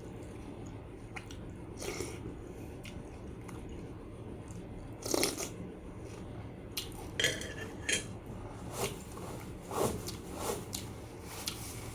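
A person biting and chewing crunchy food close to the microphone, in irregular crunches about a second apart, over a steady low hum.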